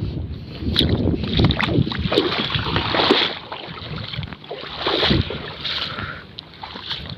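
Irregular splashing and sloshing of water, with wind buffeting the microphone.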